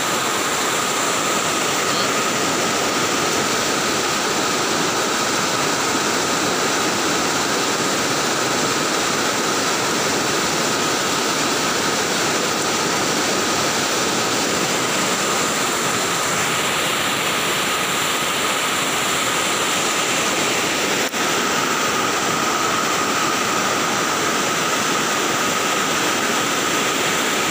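Turbulent floodwater rushing and churning, a steady loud rush of water that does not let up.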